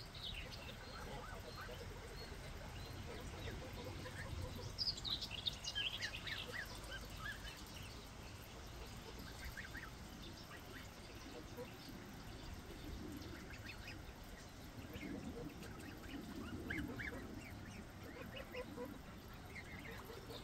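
A flock of domestic geese with goslings calling: scattered short, high-pitched peeps and calls, busiest about five seconds in, over a faint low rumble.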